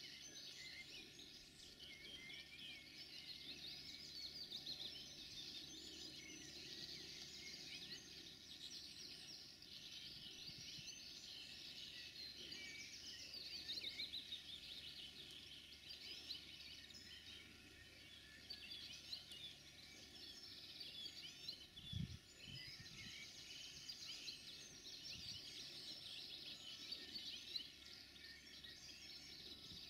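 Chorus of small songbirds chirping and warbling, continuous and fairly faint, with a faint low hum underneath and a few brief low thumps about two-thirds of the way through.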